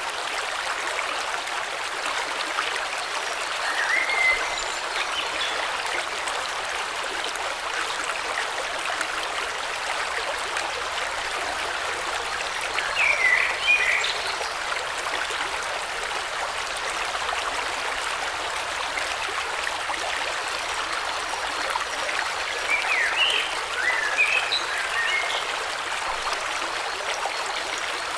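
Steady rushing of a flowing river or stream. Short bird chirps rise above the water three times: early on, around the middle, and in a cluster near the end.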